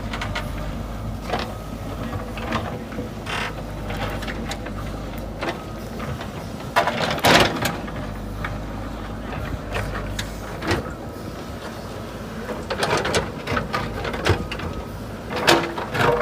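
JCB 3DX backhoe loader's diesel engine running steadily under work, with irregular clanks and scrapes of the bucket against soil and rock. The engine drone eases off about ten seconds in.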